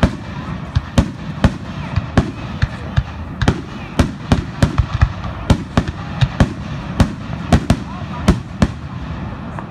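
Aerial firework shells bursting in quick succession, about two or three sharp booms a second, easing off near the end.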